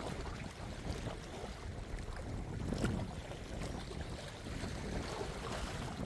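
Sea waves washing, with wind rumbling on the microphone; one wave swells louder about three seconds in.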